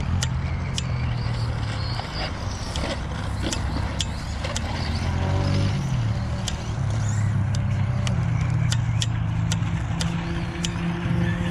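Traxxas Slash VXL radio-controlled trucks running laps on a dirt track. A steady low rumble shifts in pitch, with scattered sharp clicks and knocks throughout.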